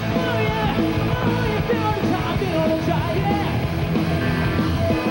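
A rock band playing a fast rock-and-roll number live: electric guitar lead lines bending in pitch over the full band.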